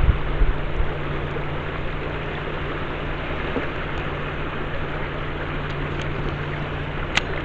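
River water rushing steadily, with a few low thumps right at the start and one sharp click near the end.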